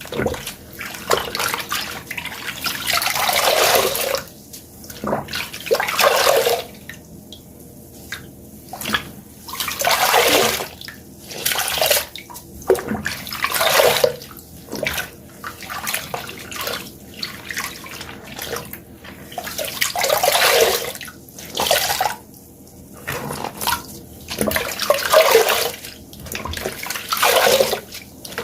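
Wet sponges squeezed over and over, water gushing and splashing out with each squeeze, a fresh squeeze every two seconds or so.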